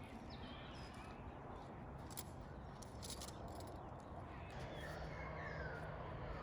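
Faint birds calling over low outdoor ambience, a few short chirps and whistles coming and going, with a low steady hum joining about halfway through.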